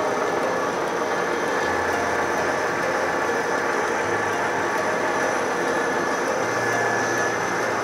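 Etirama SPS4 flexographic label press running steadily at production speed, about 150 metres a minute: a continuous mechanical whir and hum with a few steady high-pitched tones.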